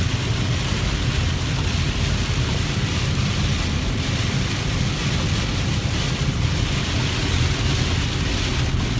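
Steady road noise of a car driving on a wet road in heavy rain: an even hiss with a low rumble underneath.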